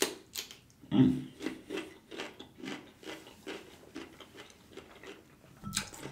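A crisp bite into a cucumber spear, then steady crunchy chewing close to the microphone, about three or four chews a second.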